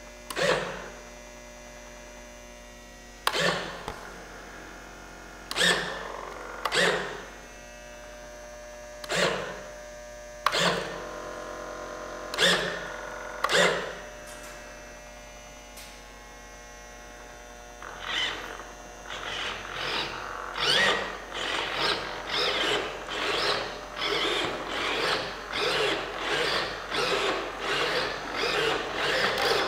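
Electric servos of a large radio-controlled de Havilland Beaver model whirring in short strokes, several times in pairs about a second apart, over a steady electrical hum. Past the halfway mark they work in quick, continuous back-and-forth strokes, as when the controls are cycled.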